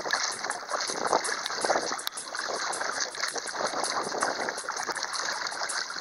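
Water splashing and trickling against a Hobie kayak's hull, a steady, uneven wash.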